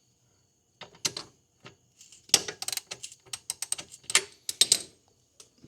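Irregular runs of sharp metallic clicking and ratcheting from a hand tool turning the chain adjuster screw on a Kawasaki KFX90's rear axle, taking up slack in the loose drive chain.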